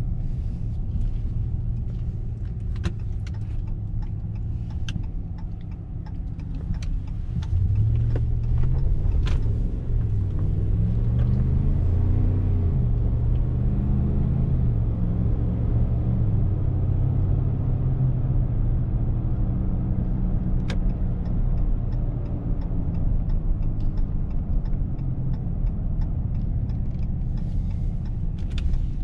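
Dodge Ram 1500's 5.7-litre Hemi V8 heard from inside the cab, running at low speed, then from about eight seconds in pulling hard, its note rising in steps through gear changes before running steadier. Light clicks come and go in the first few seconds and again near the end.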